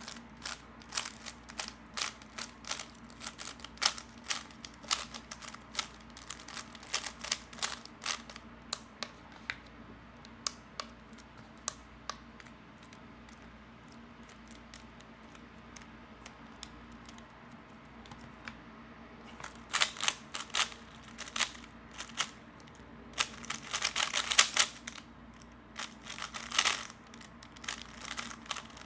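3x3 Rubik's cube being turned fast by hand: rapid plastic clicking and clacking of the layers. The turning stops for several seconds in the middle, then resumes with denser bursts of clicks.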